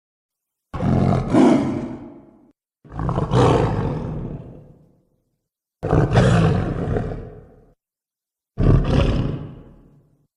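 Four monster roar sound effects, one after another, each starting suddenly and fading out over about two seconds, with silence between them.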